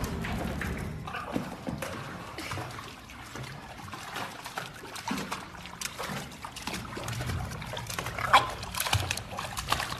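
Water splashing and sloshing as a Yorkshire terrier paddles about in a shallow inflatable paddling pool, in many small irregular splashes, with one sharper, louder hit near the end.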